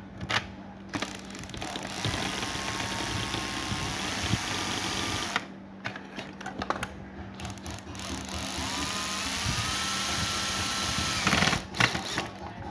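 Cordless drill/driver driving screws in two runs of about three and a half seconds each. The motor's whine rises in pitch as it spins up, then holds steady, with short clicks between the runs and a few sharp knocks near the end.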